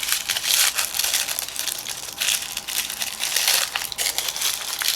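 A small plastic accessory bag from an LOL Surprise doll pack crinkling and crackling as it is handled and pulled open by hand.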